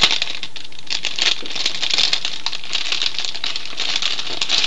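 Plastic bag or wrapping crinkling and crackling as it is handled and opened, with many small irregular crackles and clicks.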